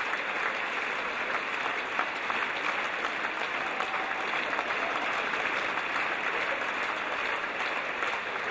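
Audience and orchestra musicians applauding, many hands clapping in a steady, unbroken stream.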